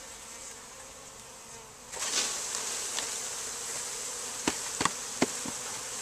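Honey bees buzzing. About two seconds in the buzz suddenly swells louder as the swarm is shaken down into the hive body, with a few sharp knocks about three seconds later.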